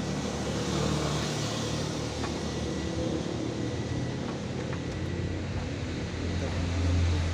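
A motor vehicle engine running steadily, swelling briefly near the end, with a few light clicks.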